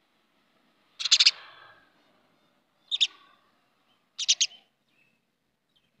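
House sparrows chirping: three short bursts of sharp chirps, about a second in, around three seconds in and just past four seconds in.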